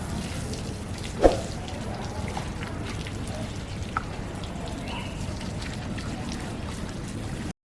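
Water running and splashing steadily over a low rumble, with one sharp knock about a second in and a smaller click later; the sound cuts off suddenly near the end.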